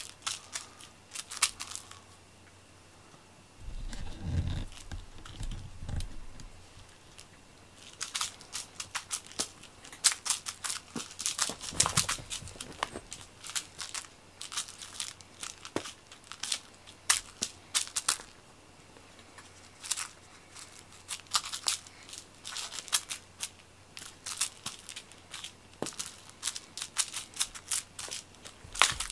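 Quick scratchy rustles and clicks of a string-pulled toy mouse flicked across a quilted fleece mat as a cat paws at it, with a few dull thumps about four to six seconds in.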